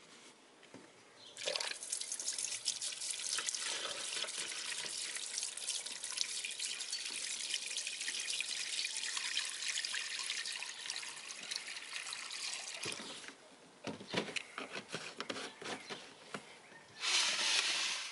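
Liquid poured from a plastic jug into a stainless steel bowl: a steady splashing pour lasting about twelve seconds, then scattered drips and small clicks. A brief, louder rush of noise comes near the end.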